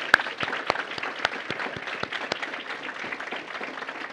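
Audience applauding, with one person's hand claps close by standing out at about four a second for the first two and a half seconds before the clapping of the crowd carries on alone.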